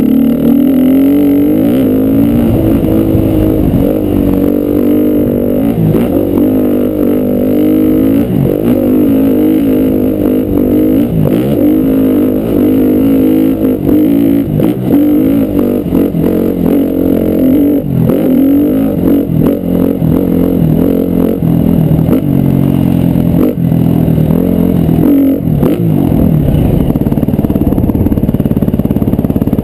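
KTM dirt bike engine under way, its revs climbing and dropping again and again as the rider works the throttle and shifts gears, with clatter from the bike over the bumps of a dirt track.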